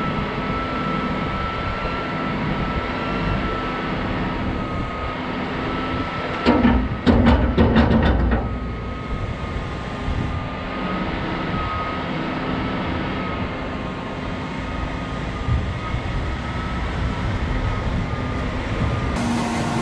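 Tractor-driven Peecon feed mixer wagon running with a steady drone and whine while it mixes a load of silage. A burst of loud clattering knocks comes about six and a half seconds in and lasts nearly two seconds.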